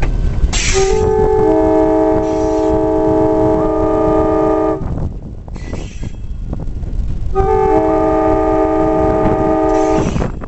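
EMD GP9 diesel locomotive's air horn sounding two long blasts of about four seconds each, a chord of several notes held steady, with a short break between them. It is a warning to a dirt road crossing just ahead, sounded over the steady low rumble of the locomotive's diesel engine.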